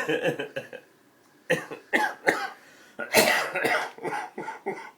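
A man's loud coughing fit: a run of harsh coughs in short bursts, the loudest about three seconds in, from a bad cough.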